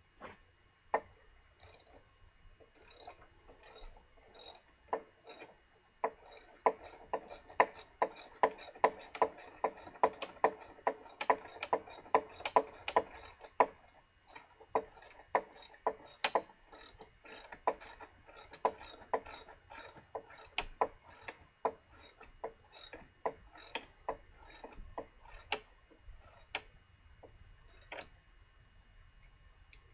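Ratchet wrench clicking in quick runs of strokes, turning a lag bolt into wood. The clicks come thickest and loudest in the middle, then thin out.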